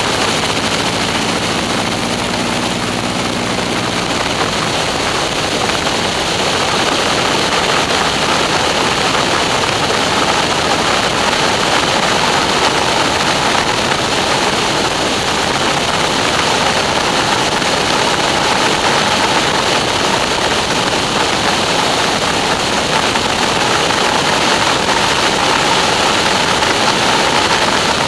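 Steady rush of wind over a wingtip-mounted camera on a Stearman biplane in flight, with the biplane's radial engine running underneath; the low engine hum stands out more clearly for the first four seconds.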